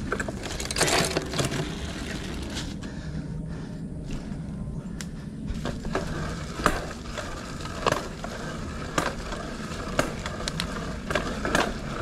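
Mountain bike riding over a rough, muddy dirt trail: steady tyre noise with irregular clicks and knocks as the bike rattles over bumps.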